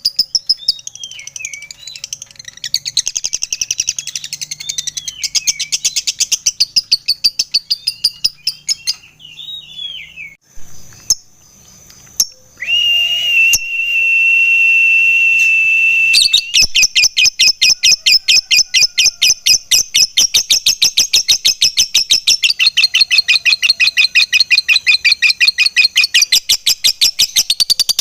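Lovebird singing the long 'ngekek' chatter, a rapid, even run of high, harsh notes. It breaks off about nine seconds in for a few chirps, two sharp clicks and a steady high tone held for a few seconds, then resumes fast to the end.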